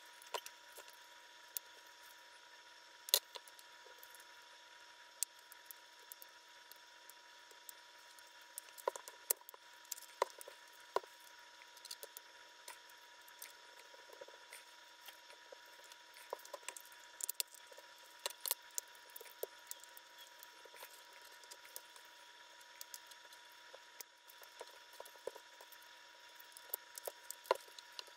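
Small scattered clicks and scrapes of a thin blade prying along the seam of a DJI Mavic 2 battery's plastic case, the first step in opening the pack, with a sharper click about three seconds in and a cluster of them around ten seconds. A faint steady tone and hiss underlie it.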